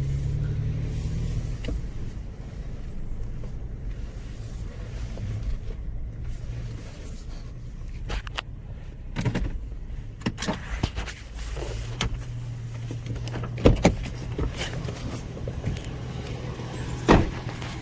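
The 4.0-litre V6 of a 2008 Toyota FJ Cruiser idling steadily with a low hum. A few sharp knocks or clicks come in the second half.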